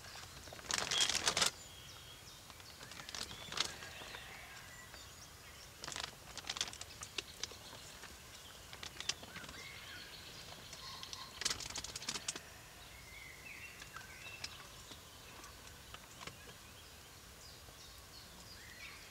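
Mouflon herd moving and grazing in dry leaf litter and grass: short bursts of rustling and crackling every few seconds. Small birds chirp now and then in the background.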